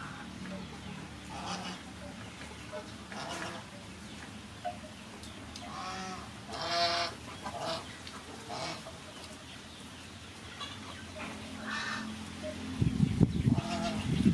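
Farm animals calling in short, separate calls every second or two, the loudest about seven seconds in. Low rumbling knocks come near the end.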